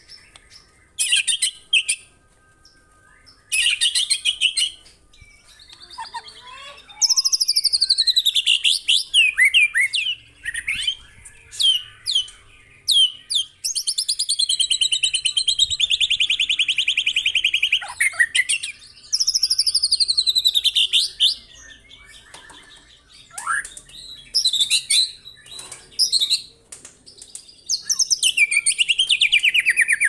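White-rumped shama (murai batu) singing loudly in a string of varied phrases. Short sharp notes alternate with long, rapid trills that sweep down in pitch, separated by brief pauses.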